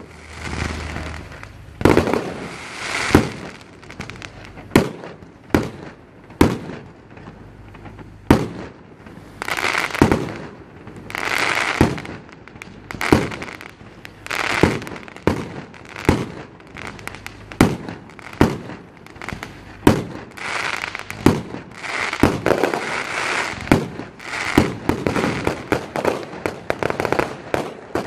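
Fireworks display: aerial shells bursting in quick succession, sharp bangs about once a second, with stretches of crackle between them.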